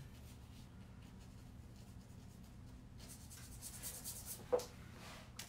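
Paintbrush strokes brushing watery paint onto paper: a faint scratchy rubbing that grows busier about three seconds in, with a sharp tap a little later and another near the end.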